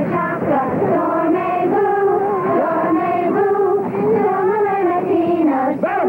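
A group of girls singing together in chorus, holding long steady notes.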